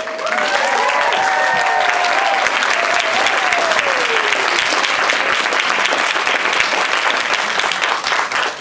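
Audience applauding and cheering, with a few voices whooping and gliding down in pitch over the first few seconds.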